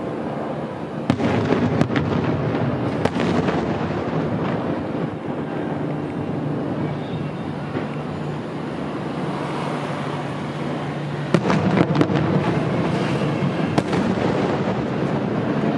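Aerial fireworks shells bursting over a continuous rumble and crackle. There are sharp bangs about a second in and again around two and three seconds, then a cluster of bangs from about eleven to fourteen seconds.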